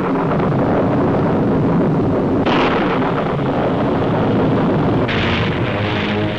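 Loud, continuous rumbling noise with a crackling texture, turning brighter and hissier about two and a half seconds in and again about five seconds in.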